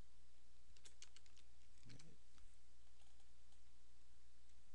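A quick run of computer keyboard keystrokes about a second in, then a few fainter clicks, over a steady low electrical hum.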